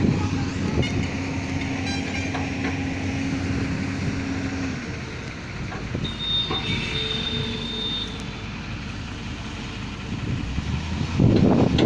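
Heavy vehicle running on the road, with a steady engine drone that drops away about five seconds in. A high thin whine follows from about six to eight seconds in.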